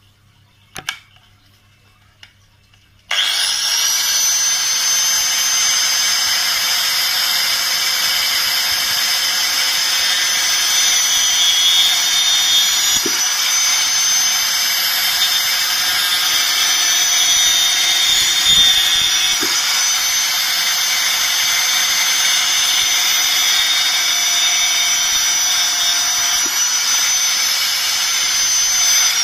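Angle grinder fitted with a toothed wood-cutting saw blade, switched on about three seconds in after a single click. It spins up quickly and then runs steadily at full speed with a high, even whine.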